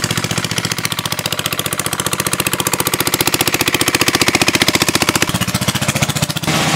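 Small single-cylinder engine driving a water pump, running steadily with a fast, even chugging beat as it pumps water out of a pond. Near the end the beat drops away into a steadier rushing noise.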